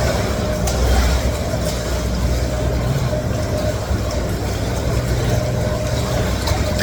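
Counter-current swim machine of a one-person pool running at its top speed: a steady low rumble with a constant hum over the rush of churned water.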